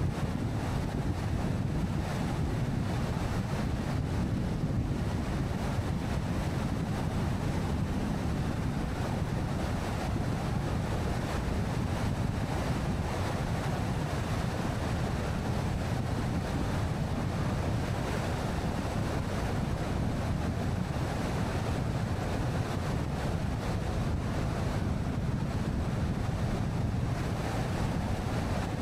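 Steady road and wind noise of a car driving along a highway, a constant low rumble with no change.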